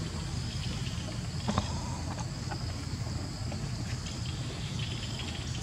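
Outdoor background sound: a steady low rumble under a steady high-pitched whine, with one short click about one and a half seconds in.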